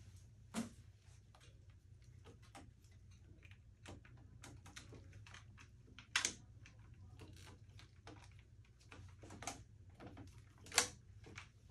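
Small clicks and handling noises of plastic IV tubing being fitted into an infusion pump, with three sharper clicks: about half a second in, about six seconds in, and near the end. A steady low room hum lies underneath.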